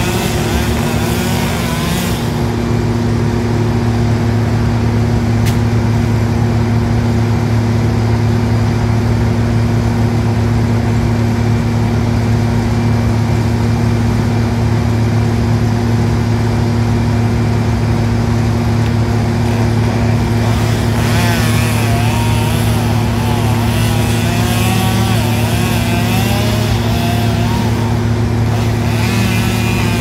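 A steady engine drone runs throughout, while a chainsaw cuts into the tree trunk for the first two seconds and again through most of the last third, its pitch wavering under load.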